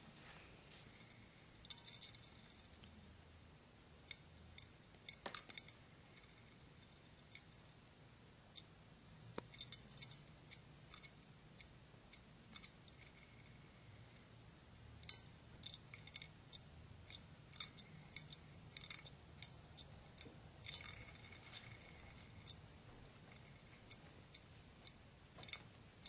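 Mexican jumping beans rocking and hopping on a ceramic plate, giving irregular clusters of faint light clicks and taps; each jump is set off by the moth caterpillar inside the seed jerking.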